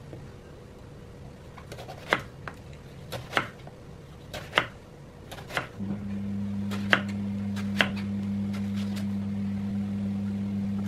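Kitchen knife slicing a long green eggplant into rounds on a wooden chopping board: about six sharp knocks of the blade hitting the board, roughly a second apart. About halfway through, a steady low hum comes in and carries on under the cuts.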